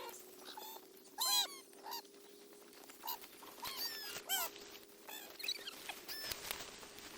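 Bleating livestock: several short, high-pitched bleats a second or so apart, over a faint steady hum.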